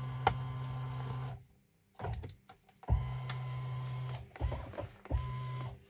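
Tesla Model 3/Y electric steering-column adjustment motor whirring as the wheel is moved, stopping and starting a few times with small clicks in between.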